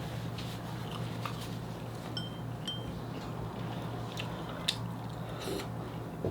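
Close-up chewing of dakgalbi chicken, with scattered small clicks and a couple of short clinks, over a steady low hum.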